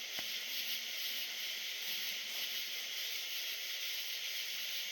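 A steady, high-pitched chorus of night insects buzzing and trilling without a break.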